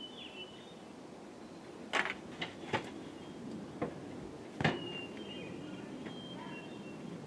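About five short, sharp knocks and clicks spread over a few seconds, the loudest about four and a half seconds in, with faint high chirps in between.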